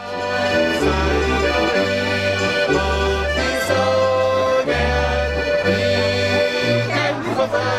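Alpine folk music led by a Styrian button accordion (Steirische Harmonika) playing sustained chords over a regular alternating bass, with violin, hammered dulcimer and double bass in the ensemble.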